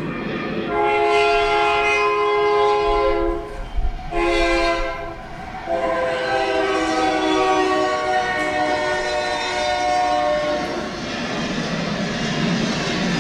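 A train horn sounds long multi-tone blasts: two in the first five seconds, then a longer one that dies away about ten seconds in, over the low rumble and clatter of a moving train.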